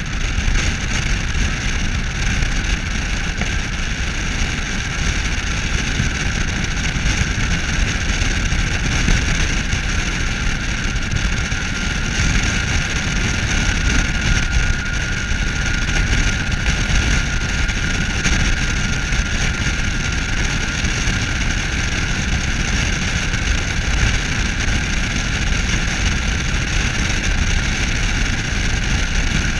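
Steady rush of wind and road noise from a vehicle travelling at speed alongside a moving train, a continuous deep rumble under an even hiss.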